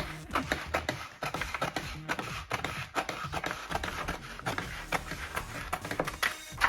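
Crackling and rustling of a vinyl decal's paper backing being handled and cut away, a dense run of small sharp crinkles.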